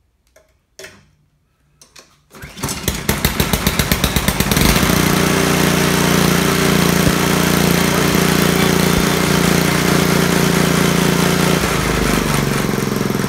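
Honda GC160 single-cylinder engine pull-started: it catches about two and a half seconds in, fires in quick separate pulses for a couple of seconds, then settles into a steady run, its note shifting slightly near the end. The engine had been run out of oil until it died, and it now starts and runs after its valve clearances were reset and the oil topped up.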